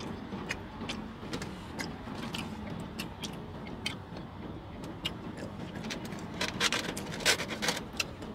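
Chewing with scattered small mouth clicks and smacks, over a steady low hum of a car cabin. A quick run of louder crackling clicks comes about six and a half seconds in.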